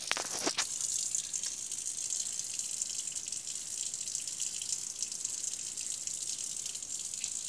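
Kitchen tap running water onto cutlery in a sink, a steady hiss, with a couple of sharp clicks in the first half second.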